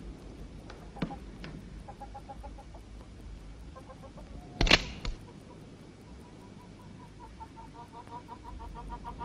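Hens clucking in quick, even pulses, sparse at first and building toward the end. A single sharp click about halfway through is the loudest sound, with a few fainter clicks near the start.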